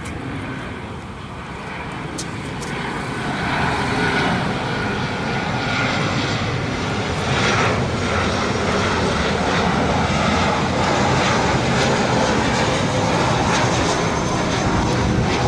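Boeing 737-800's CFM56-7B jet engines on final approach, gear down. The engine noise grows louder over the first four seconds as the jet nears, then holds as a steady rushing drone with a faint high whine.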